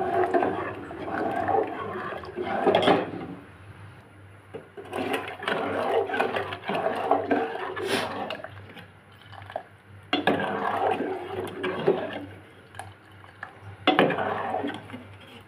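Metal spoon stirring a thick milk mixture in an aluminium pot: the liquid sloshes and the spoon scrapes and clicks against the pot. It comes in four bouts with short pauses between them.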